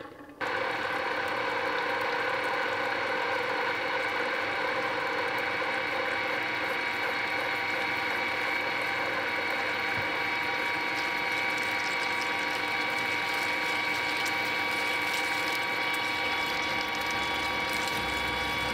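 An old gear-head metal lathe is switched on about half a second in and then runs steadily with a whine of several tones. Meanwhile a freshly sharpened HSS twist drill bores into a hard steel workpiece under flowing coolant and cuts easily.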